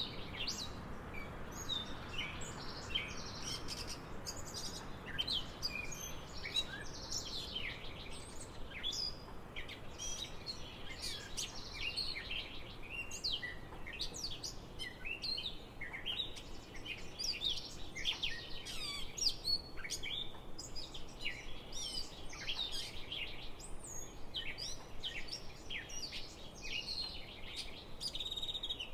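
Wild songbirds chirping and singing, many short overlapping calls, over a faint steady outdoor background hiss.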